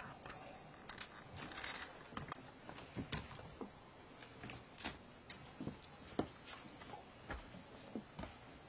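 Scattered light clicks and taps of five-week-old kittens scampering and wrestling, paws and claws on a wooden floor and cardboard, one or two a second and uneven, with one sharper tap about six seconds in.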